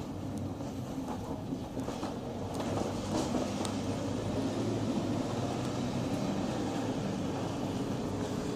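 Mercedes-Benz Sprinter minibus on the move, heard from inside: a steady engine hum with road noise, growing a little louder about three seconds in, with a few light rattles and clicks.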